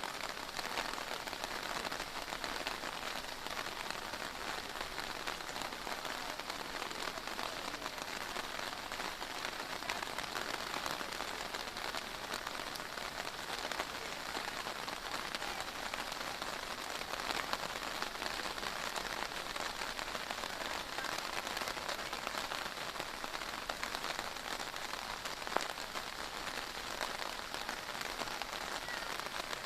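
Heavy pouring rain falling steadily and pattering on hard surfaces, an even hiss with a dense spatter of drops and one sharper tap near the end.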